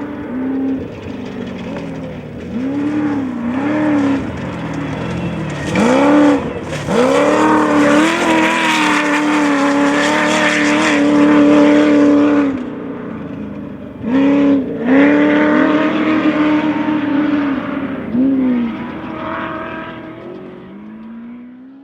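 Off-road race vehicle's engine revving hard over and over, the pitch climbing and dropping as the throttle comes on and off, loudest in the middle and dying away near the end.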